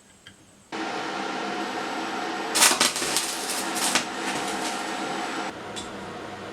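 A small electric motor switches on suddenly and runs with a steady hum. There are a few loud rasping bursts in the middle, then it settles to a quieter hum near the end.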